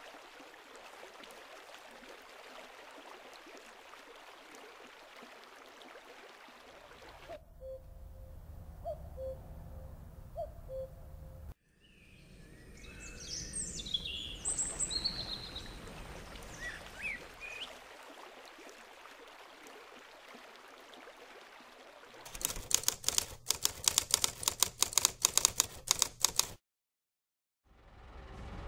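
Stream water running over stones, with small birds chirping for a few seconds in the middle. Near the end comes about four seconds of rapid, loud clicking, which cuts off into a moment of silence.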